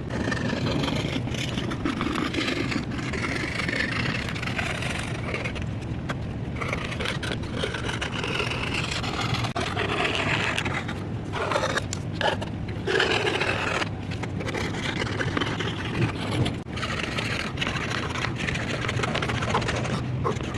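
Continuous scraping and rubbing on wood, broken by a few short pauses.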